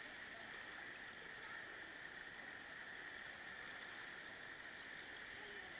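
Faint, steady rush of a mountain creek running over rocks.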